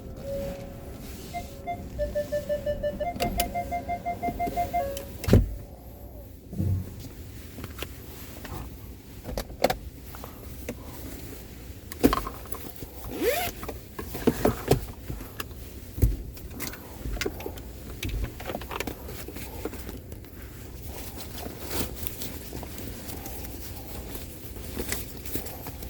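A vehicle's electronic warning chime beeping in quick repeated pulses for a few seconds. It is followed by a loud thunk and then scattered knocks and clatter of handling in and around the vehicle.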